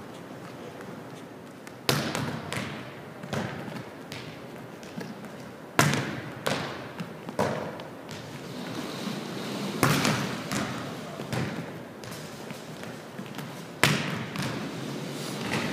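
Volleyball being struck hard about every four seconds, each sharp smack followed by a few quieter bounces on a hardwood gym floor, echoing around the gym.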